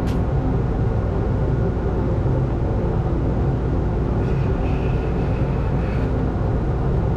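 Steady mechanical rumble with a low hum from a running machine.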